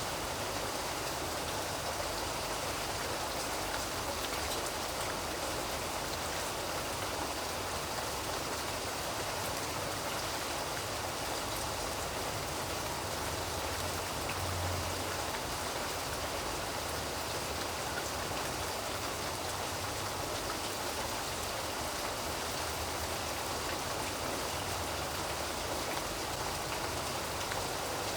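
Steady rain falling, an even hiss with scattered drops ticking on a surface, and a brief low rumble about halfway through.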